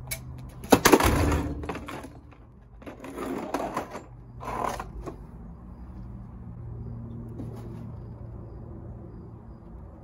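Old Sebo Essential upright vacuum cleaner thrown with full force onto asphalt: a loud crash of hard plastic about a second in, with clattering after it, then more crashing and clattering a couple of seconds later. The body comes apart at its joint and some of the plastic ruptures.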